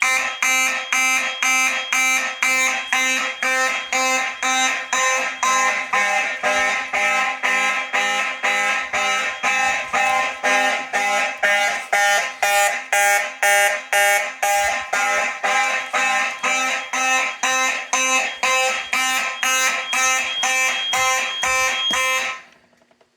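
Fire alarm sounders going off together in march time, about two pulses a second, then cutting off suddenly near the end as the alarm is silenced.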